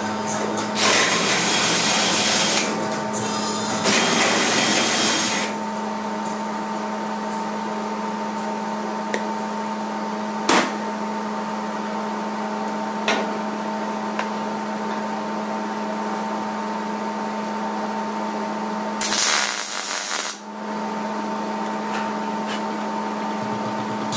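Makita cordless drill drilling into sheet steel in two loud bursts over the first five seconds, cleaning primer off for plug welds. After that a steady hum with a few faint clicks, and near the end one more short, loud burst.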